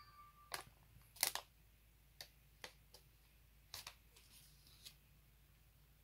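Scattered sharp clicks and taps, about eight in all, the loudest a double click about a second in: a smartphone being handled.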